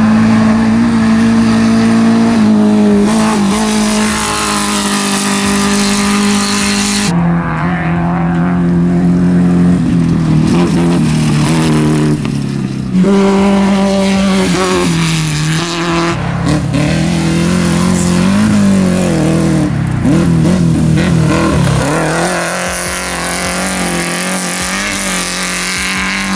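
Off-road race vehicle's engine running hard at high revs. Its pitch drops suddenly about seven and thirteen seconds in, and the revs rise and fall several times later on.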